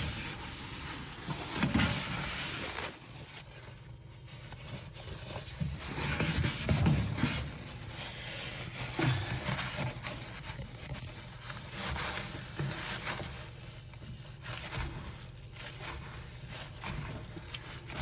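A cloth rubbing and wiping the inside walls of a microwave whose grime has been loosened by steam, in uneven strokes that come and go.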